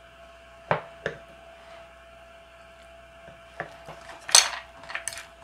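A few light clicks and knocks of a wooden spoon against a small porridge bowl and wooden chopsticks on a wooden tray, with a louder brief rustle about four seconds in, over a faint steady hum.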